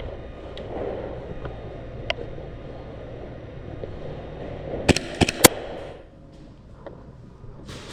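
Three sharp airsoft gun shots in quick succession, about a quarter second apart, roughly five seconds in, with a single fainter click earlier, over a low steady background.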